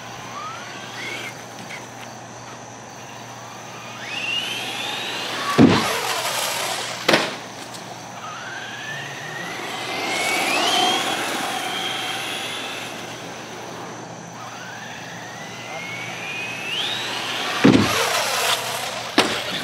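Traxxas Slash 4x4 RC short-course truck running on asphalt, its electric motor whining up in pitch on three runs. On two of the runs come two sharp knocks about a second and a half apart: the truck hitting the wooden jump and then landing.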